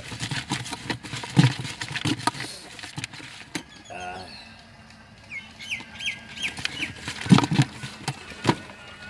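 A spoon knocking and scraping in a plastic bucket as jhalmuri is stirred, a quick run of clattering strokes that stops in the middle and returns near the end. In the lull a bird chirps, about six short notes in a row.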